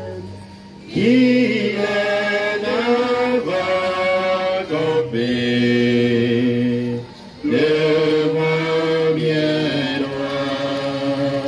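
Choir and congregation singing a slow chanted hymn together, in phrases of long held notes, with short breaks about a second in and again about seven seconds in.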